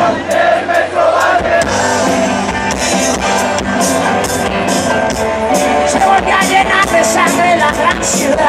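Live rock band playing loud through a concert PA: electric guitars, bass and a drum kit with cymbals.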